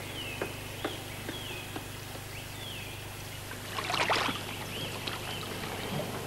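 Footsteps clicking down a staircase about twice a second, with a short high falling chirp repeating over a low steady hum. About four seconds in, a brief splash of water as goldfish break the surface of a pond.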